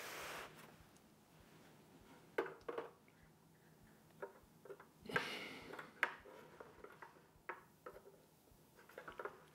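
Faint handling of a Samsung M.2 SSD being pressed into the M.2 slot on the underside of a Synology DS923+ NAS: scattered small plastic clicks and taps as the stick seats, with two soft rustles, one at the start and one about five seconds in.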